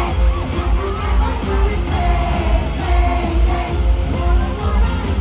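Live K-pop concert music over arena speakers: a pop track with a heavy, pulsing bass beat and singing, with fans yelling in the crowd.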